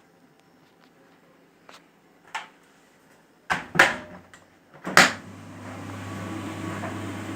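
Clicks and knocks from a Simpson tumble dryer's controls and door, then, about five seconds in, its motor starts and the drum runs with a steady hum and hiss that builds up over a couple of seconds.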